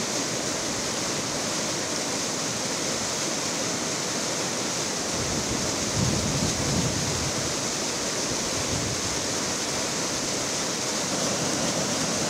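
Floodwater rushing and churning around a tree trunk, a steady noise of fast-flowing water that swells slightly about six seconds in.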